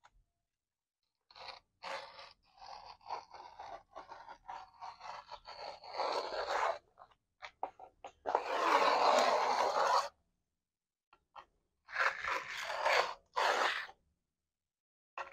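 Carbide-tipped scoring tool scraping a groove through a fresh, still-soft microcement texture coat along a straight edge. First comes a run of short scrapes, then one long steady drag about eight seconds in, then two more short strokes near the end.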